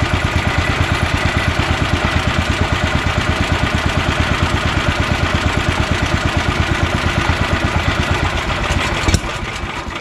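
Honda GX340 single-cylinder engine idling steadily with an even rapid beat. About nine seconds in there is a sharp click and the engine is switched off with its kill switch and runs down.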